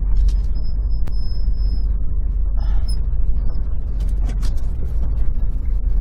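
Class C motorhome creeping forward at low speed, heard from inside the cab: a steady low rumble of engine and road, with creaks, clicks and rattles from the cabin. A thin high squeal sounds for a little over a second near the start.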